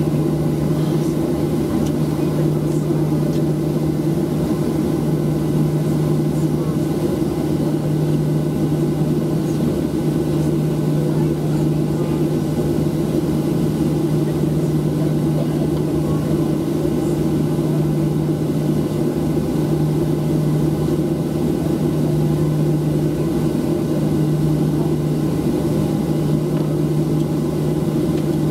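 Steady cabin noise of a Boeing 737-700 taxiing, heard inside the cabin. Its CFM56-7B engines hum evenly at low taxi power over a constant rush of air.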